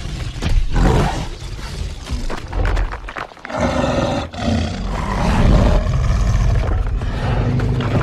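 Carnotaurus creature sound effects from an animated film: deep, rumbling roars and growls one after another. There is a short break a little past three seconds, then a longer, louder roar through the second half.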